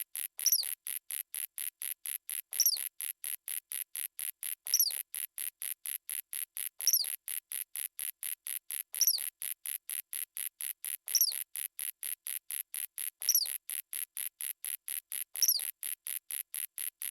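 Looped insect-like chirping: rapid, even, high-pitched pulses about five a second, with a louder short falling chirp repeating about every two seconds.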